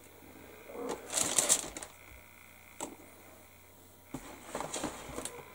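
Hard plastic model-kit sprues being handled and shifted: a burst of clattering and rustling about a second in, a single click near the middle, and more rattling near the end.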